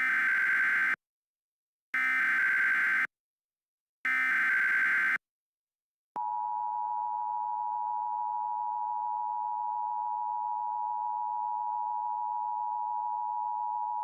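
Emergency Alert System SAME header: three one-second bursts of warbling digital data tones, about a second apart, encoding a Severe Thunderstorm Warning. About six seconds in, the steady two-tone EAS attention signal begins and holds for about eight seconds.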